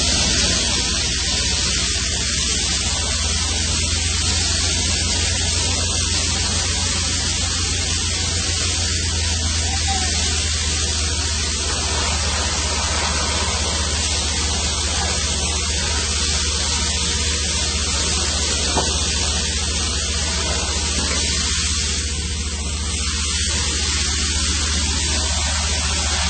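Steady industrial machinery noise on an offshore platform: a continuous loud hiss with a low hum beneath it, unchanging throughout.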